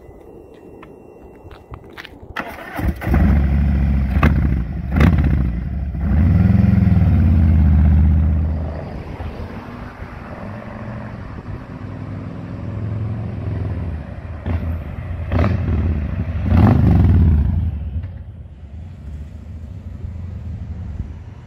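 Harley-Davidson Fat Boy 114's Milwaukee-Eight V-twin starting about two seconds in and revving, its deep exhaust note rising and falling. The motorcycle then rides by, getting louder around the middle and fading near the end.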